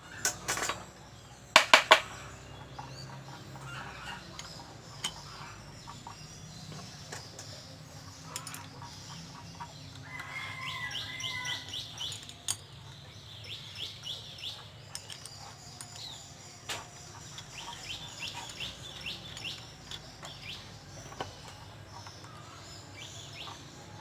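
Chickens clucking repeatedly in short calls, with three sharp knocks close together about two seconds in.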